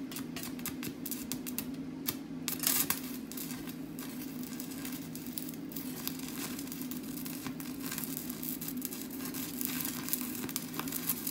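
Stick (arc) welding on steel: the electrode's arc crackles and sizzles steadily, with a steady low hum underneath.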